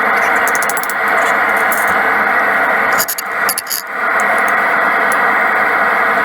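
Homemade forge burner running with a steady, loud rushing noise that dips briefly about three seconds in.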